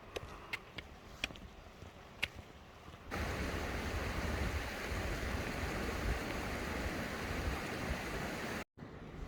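A few sharp taps over quiet trail ambience. About three seconds in, this cuts abruptly to the steady rush of a mountain stream or waterfall, which stops suddenly near the end.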